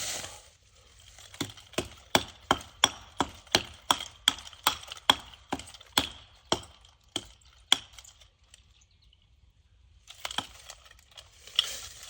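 Nunchucks striking a tree trunk again and again, a rapid run of sharp wooden cracks at about two to three a second for some six seconds, then stopping. The blows do not cut the tree.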